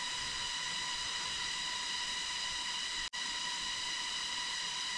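Cicadas droning: one steady high buzz with a string of even overtones over a hiss, which briefly cuts out about three seconds in.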